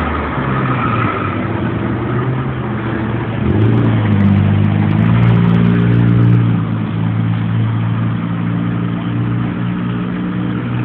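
Street traffic: a nearby vehicle's engine comes in about three and a half seconds in and runs on with a steady low hum, loudest in the middle. Underneath it is the constant hiss of passing cars.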